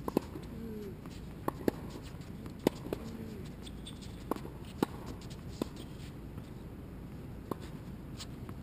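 Tennis balls popping off racket strings and bouncing on a hard court: about a dozen sharp single pops at irregular intervals, some loud and close, others fainter. A bird coos faintly twice in the first few seconds.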